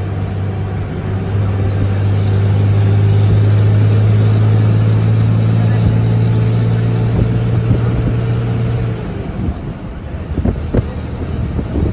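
A moving car's engine and road noise, a steady low hum that drops away about nine seconds in.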